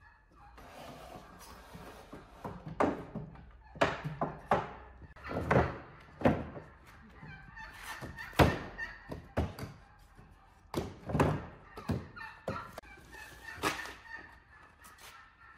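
Wooden folding table being opened out: a series of sharp wooden knocks as its hinged leaves and top are flipped over and set down on the frame, the loudest about halfway through.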